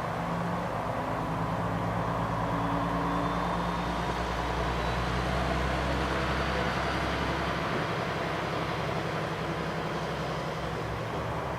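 KiHa 120 diesel railcar running, a steady engine hum with a deep drone that fades about two-thirds of the way through.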